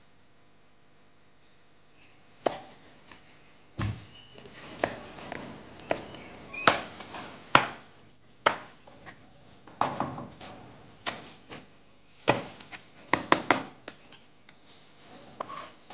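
Kitchen knife slicing a red chili on a plastic cutting board: irregular sharp taps of the blade striking the board, starting about two and a half seconds in, with a quick run of cuts near the end.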